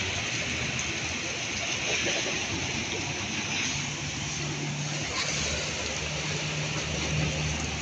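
Heavy rain hissing steadily on a wet, flooded paved street, with a low engine hum coming in about halfway through.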